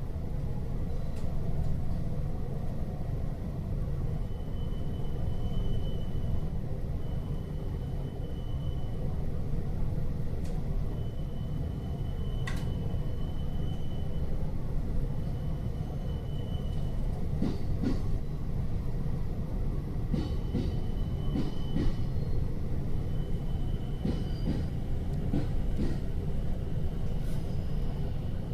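Keihin-Tohoku Line commuter train car heard from inside: a steady low rumble, with a thin high tone that comes and goes in stretches of a second or two and a few short clicks in the second half.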